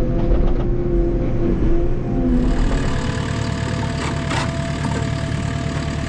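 JCB compact track loader's diesel engine running steadily, with a steady tone over the first two seconds; a little over two seconds in the engine note rises and becomes brighter as the machine works.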